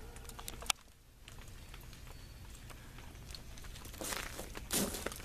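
Icy precipitation and drips ticking and pattering on ice-coated surfaces, in scattered light clicks. A louder crunch comes near the end.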